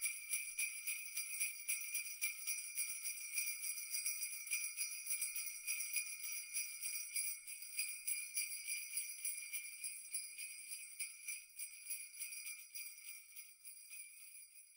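Faint sleigh bells jingling in a fast, continuous shake, slowly fading out near the end.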